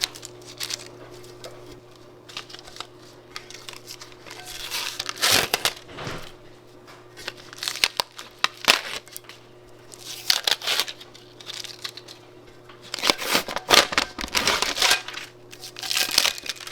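Sublimation paper and heat tape being peeled off a tumbler, crinkling and tearing in irregular bursts, loudest near the middle and again toward the end.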